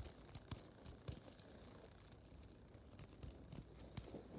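Bike-chain fidget toy being flexed in the fingers, its links clicking and rattling in quick, irregular runs, with a short lull about two seconds in.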